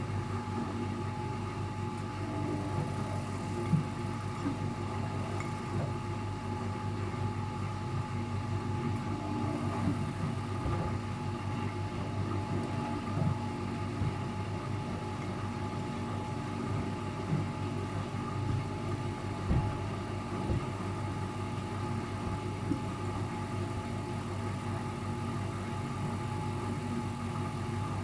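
Luxor WM 1042 front-loading washing machine in its spin cycle with an unbalanced load: a steady motor hum and whine, with a few short knocks from the drum.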